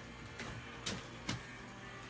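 Three short, sharp taps about half a second apart over a faint steady hum.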